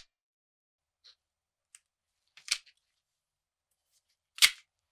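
A 1950s Colt 45 toy cap gun being worked and fired: faint clicks of its action, a smaller snap about halfway, then one sharp cap bang near the end.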